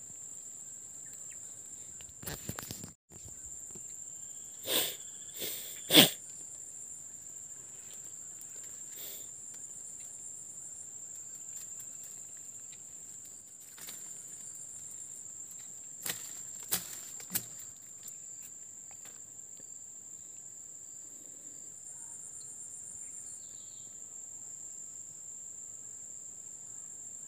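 Insects chirring steadily in a high, unbroken drone. A few sharp knocks cut across it, a cluster between about two and six seconds in with the loudest near six seconds, and a few more around sixteen to seventeen seconds.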